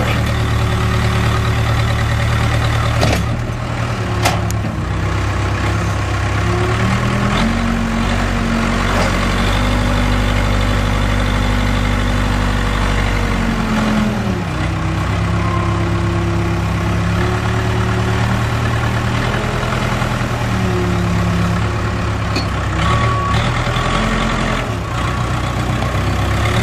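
Case 580K backhoe loader's four-cylinder diesel engine running, its revs rising about seven seconds in, held up for about six seconds, then dropping back, with smaller rises and falls later.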